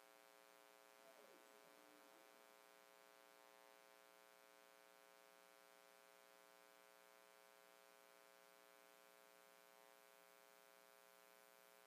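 Near silence with a faint, steady electrical hum and buzz.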